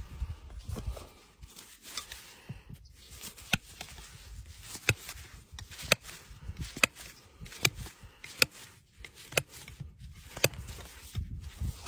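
Hoof knife paring a horse's hoof: a string of sharp cutting clicks, roughly one a second.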